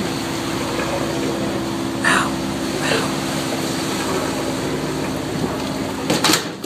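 A fishing boat's engine running steadily under way, with wind and water noise. Two short swishes come about two and three seconds in, and there is a loud clatter of knocks near the end.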